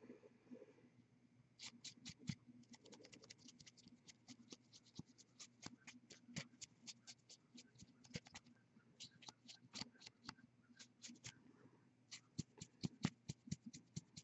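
Faint, irregular small clicks and scratches, several a second, from hands and a fine paintbrush working on a plastic miniature, over a low steady hum.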